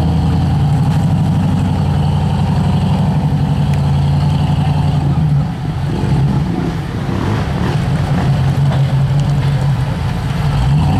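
Rock crawler buggy's engine running under load as it climbs a steep muddy bank. It runs steadily for about five seconds, dips briefly, then picks up again less evenly as the front wheels climb the bank.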